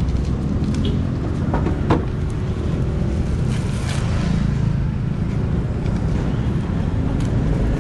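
Steady low rumble of street traffic, with a few short knocks and clicks, the sharpest about two seconds in.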